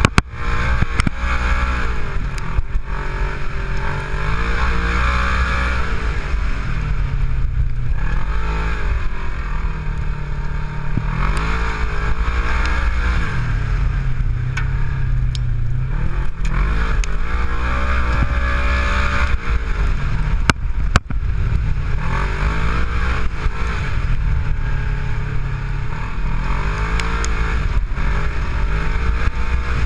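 Side-by-side off-road vehicle's engine running under load, its revs climbing and dropping again and again as the throttle is worked on a dirt track, over a steady rush of wind and drivetrain noise. A few sharp knocks cut through, the loudest about two-thirds of the way in.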